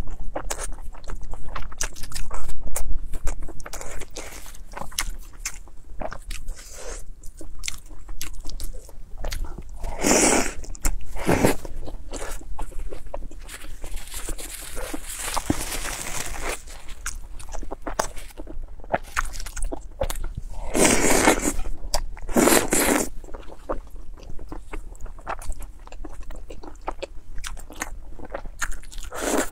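Close-miked eating: steady wet chewing with many small crunching clicks as a mouthful of spicy sliced meat is chewed, broken by several louder slurps of saucy food, around ten seconds in, twice a little after twenty seconds, and near the end.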